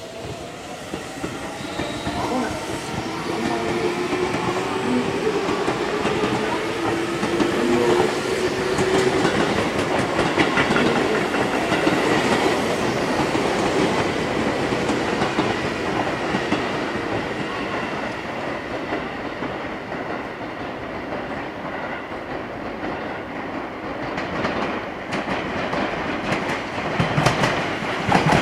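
Seibu 2000-series electric train running in, its motor whine falling steadily in pitch as it slows. Its wheels clatter over rail joints, with a quick run of clicks near the end.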